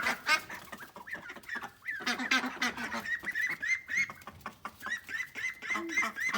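Backyard flock of chickens and ducks calling and clucking, with a run of short, high, rising-and-falling peeps about three a second in the second half.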